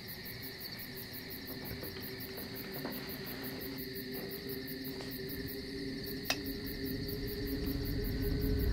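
Crickets chirping steadily in a night ambience, with an even, rapid repeating pulse. A low steady drone underneath grows louder over the last couple of seconds, and a single faint click comes about six seconds in.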